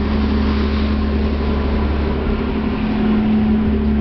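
Harbour passenger ferry's engines running steadily underway: a constant low drone with a steady hum.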